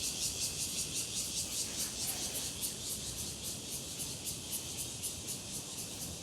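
Chorus of insects: a high, shrill buzz that pulses evenly about five or six times a second.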